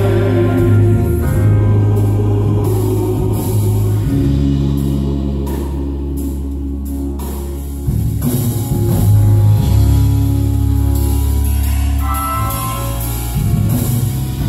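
Gospel mass choir performing with piano accompaniment: long held chords that shift every few seconds over a deep sustained bass.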